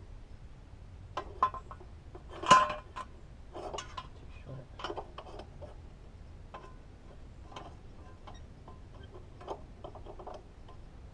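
Hand tools clinking and tapping against the metal of a snowblower's frame as it is worked on: irregular clicks and clinks, the loudest about two and a half seconds in.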